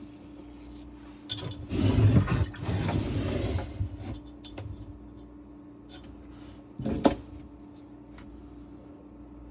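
Faucet parts and hose being handled and shifted about, with rubbing and scraping for a couple of seconds, a few small clicks, then a single knock.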